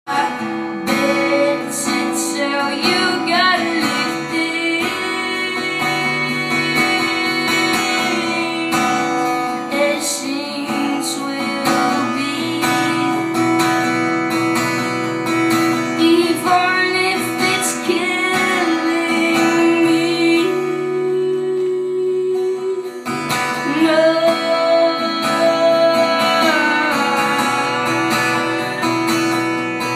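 Live song performance: a female voice singing over strummed guitar, the upper parts dropping away briefly a little after two-thirds of the way through before coming back in full.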